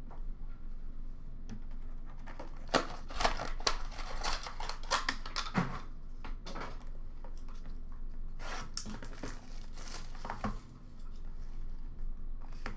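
Plastic wrapping crinkling and tearing as a sealed trading-card box is unwrapped, in two bouts of crackling about three seconds in and again around nine seconds.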